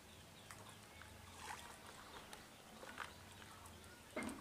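Quiet pond-side ambience with a few faint water splashes and knocks, the loudest one near the end.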